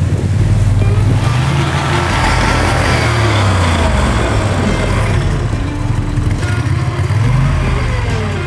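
A boat motor running loud, its pitch rising and falling several times as the revs change.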